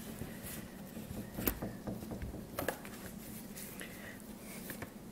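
Fingers tapping and rubbing on a DVD box set as it is gripped and picked up, soft handling rustle with a couple of sharp taps in the middle.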